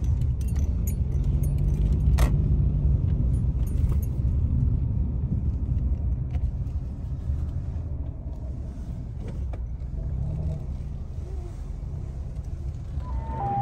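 Car driving slowly, heard from inside the cabin: a steady low engine and tyre rumble that eases off in the second half as the car slows, with scattered small clicks and rattles from inside the car.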